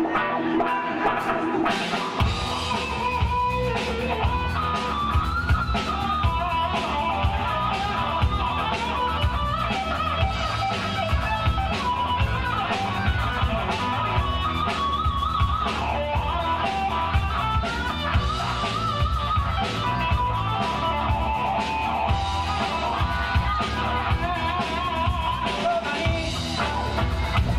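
Live blues-rock band playing an instrumental passage of a funk-blues song: electric guitar lines over drums and bass. The drums and bass come in about two seconds in.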